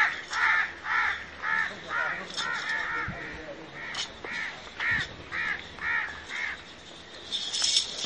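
A crow cawing over and over, about two short caws a second, with a brief break midway.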